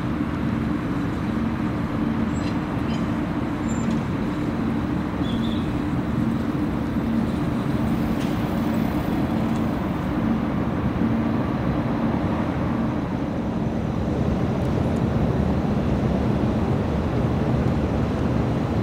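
Diesel locomotive engine running steadily with a low, even hum and a slight pulsing throb, growing a little louder over the last few seconds.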